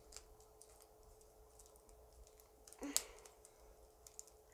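Faint, scattered plastic clicks from the movable parts of an orange fidget cube being pushed about by hand, with one louder click about three seconds in.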